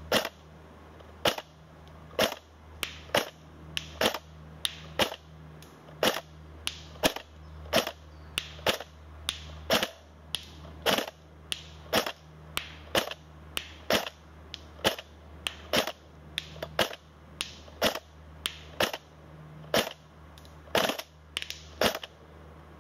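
Tokyo Marui P90 Hi-Cycle airsoft electric gun firing single shots in semi-auto, a sharp crack roughly once or twice a second over a steady low hum. Now and then two shots come close together: the gun double-tapping on semi-auto, which the owner puts down to the high-speed motor turning over too fast for the semi-auto cut-off.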